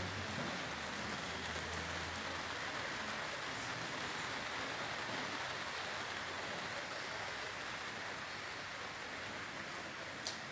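Heavy rain pouring steadily onto a grassy garden and potted plants, an even hiss.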